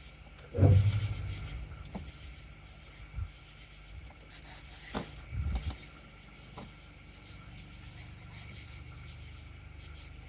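Crickets chirping steadily, with a loud low thump just over half a second in and a few smaller knocks after it.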